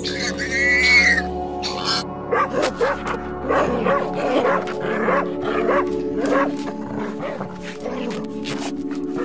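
Background music with a held chord, over which a young dog gives many short yelps and whines from about two seconds in.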